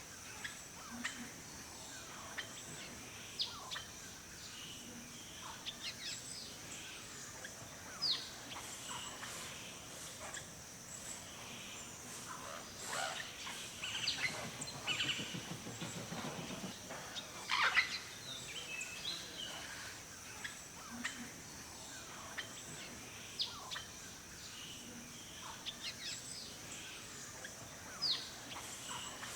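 Forest birds chirping and calling, many short falling chirps scattered throughout, over a steady high-pitched hiss, with a low rapid rattle about halfway through.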